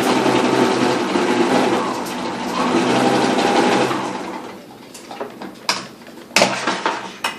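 1970s Sears Kenmore Model 1813 zigzag sewing machine running steadily, stitching a cam-driven scallop pattern, and stopping about four seconds in. A few sharp clicks and knocks follow.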